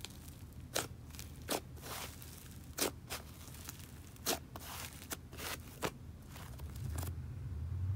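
Soft butter slime pressed and fluffed by hand, giving sharp crackling sizzles, little pops of trapped air, about once a second or so.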